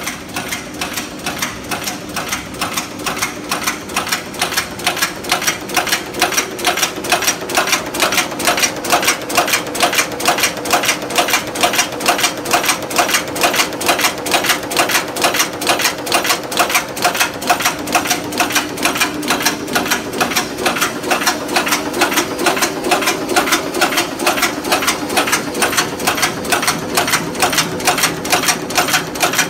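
Screw thread rolling machine running, rolling drywall screw blanks: a fast, even rhythm of metallic clacks, about three to four a second, over a steady machine hum.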